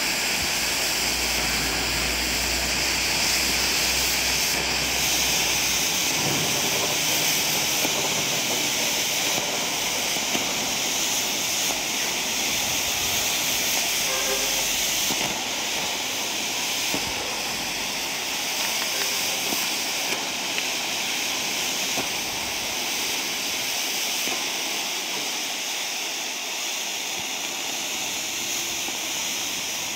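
Several Argento 18 mm black smoke bombs burning with a steady hiss, easing slightly near the end.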